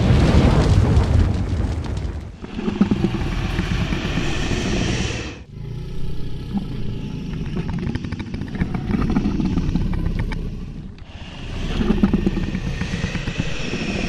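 Dragon creature sound effect: low growling in four long phrases, breaking off briefly about two, five and a half and eleven seconds in.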